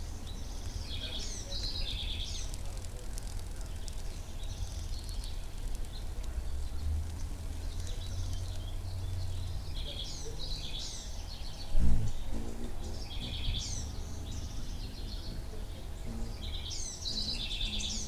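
A songbird sings short, quick phrases again and again, every few seconds, over a steady low rumble. A single thump comes about twelve seconds in.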